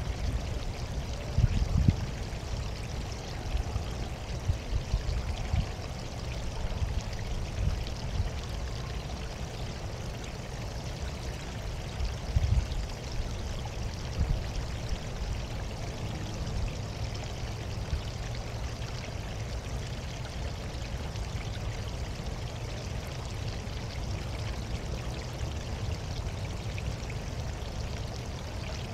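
Water running steadily over a stone water feature, a continuous splashing trickle, with irregular low rumbles that are loudest about two seconds in and again around twelve seconds.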